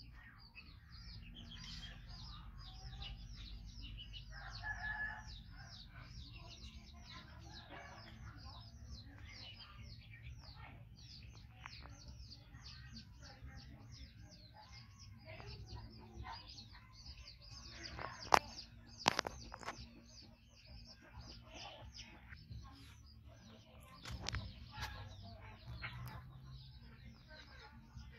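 Chickens and small birds calling: dense chirping throughout, with a rooster crowing about four seconds in. Two sharp clicks, the loudest sounds, come a little past the middle.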